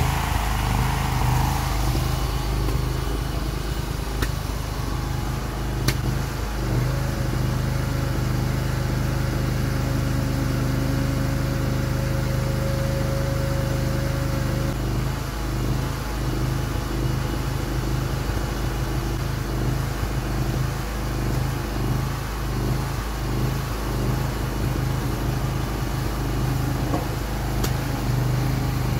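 Small engine of a homemade hydraulic mini excavator running steadily, driving its hydraulic pump while the boom and arm move. A thin steady whine joins it for several seconds from about seven seconds in.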